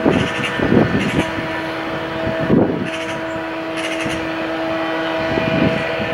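Electric train approaching along the track at a distance, giving a steady whine of several tones over a rough rumble.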